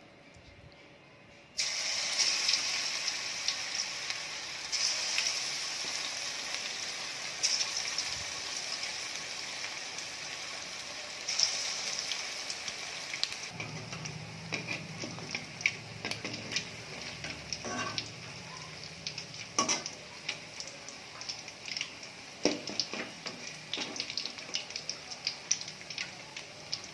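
Hot oil sizzling steadily in a pan for frying chicken 65. It starts abruptly about a second and a half in, with scattered light clicks and taps in the second half.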